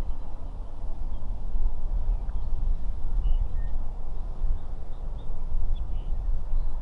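Wind buffeting the microphone with a steady low rumble, and a few faint short bird chirps now and then.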